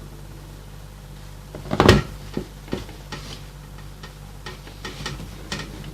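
Kitchen handling noise while a chocolate sponge cake is cut into layers: one loud knock about two seconds in, then scattered light clicks and taps of a knife and utensils, over a steady low hum.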